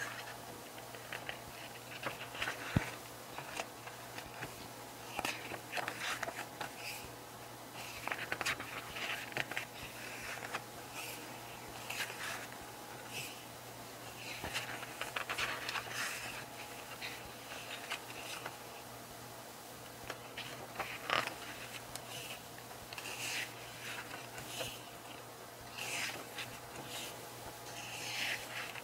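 Pages of a glossy photo book being turned by hand: irregular soft rustles and sliding paper every second or two, over a faint steady low hum.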